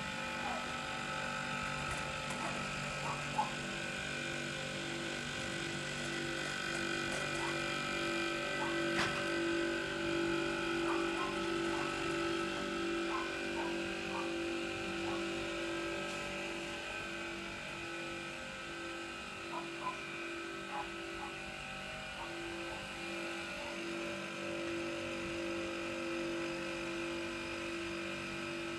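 Clarke Shhhh air compressor running: a steady motor-and-pump hum with a slightly pulsing tone, with a few faint clicks.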